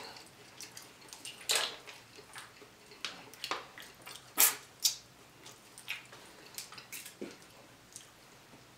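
Close-miked mukbang eating sounds: wet lip smacks and chewing as crab leg meat is eaten, in scattered short clicks, the loudest about a second and a half in and again about four and a half seconds in.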